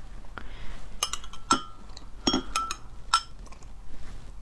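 Metal spoon and glassware clinking: about six sharp taps with a short ring, as cold water is poured from a glass jug into a glass mug.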